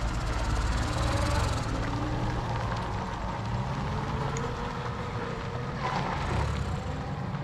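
A vehicle engine running steadily, its pitch drifting slightly up and down.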